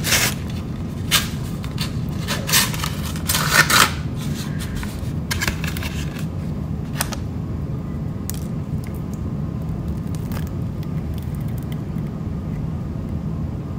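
Paper wrapping crinkling, scraping and tearing as a take-away fried peach mango pie is unwrapped and handled. The loudest crackles come in the first four seconds, then scattered fainter ones follow, over a steady low hum.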